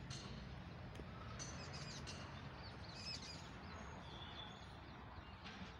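Birds chirping faintly, with a cluster of short chirps in the middle, over a low background rumble and a few sharp clicks.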